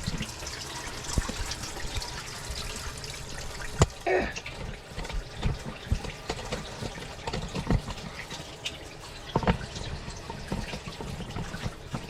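A tap with its aerator removed running steadily into a sink, flushing the line before a drinking-water sample is taken. Close knocks and clicks of the camera being handled onto a small tripod sound over it, the sharpest about four seconds in, followed by a brief squeak.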